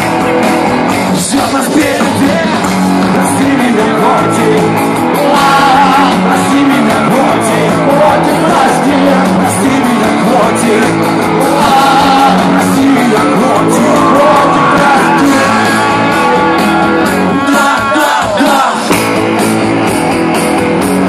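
A rock band playing live with a lead singer, loud and continuous, recorded from within the audience.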